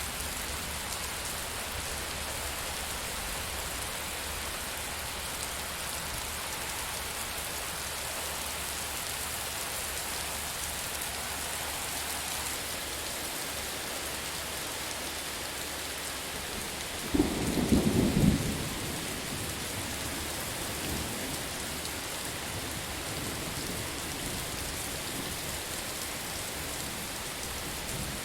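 Steady rain with a single sharp thunderclap about two-thirds of the way through, lasting about a second and a half before the rain alone carries on.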